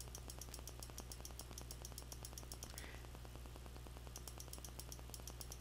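Faint, rapid, evenly spaced computer mouse clicks over a low steady hum.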